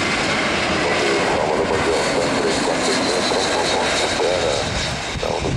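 Jet engines of a twin-engine airliner on final approach to land, a steady rushing roar. A high whine joins in about halfway through.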